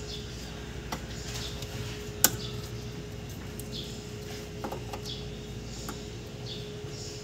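Plastic wiring-harness connectors being handled and pushed into a forklift's controller circuit board: a few light clicks and one sharp snap about two seconds in, over a steady hum.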